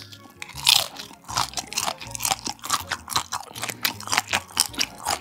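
Crunching and chewing of a butter-garlic grilled shrimp head: crisp shell crackling between the teeth in irregular bites, loudest about two-thirds of a second in.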